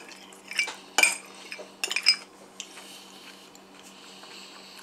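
Metal spoon clinking and scraping against a small glass bowl and dishes, a few sharp clinks in the first two seconds, the loudest about a second in, then only light handling.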